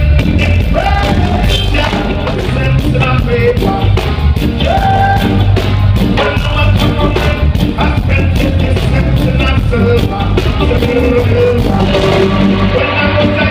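Live reggae band playing loudly: electric guitar, keyboards, bass guitar and drums, with a man singing into a microphone over the PA.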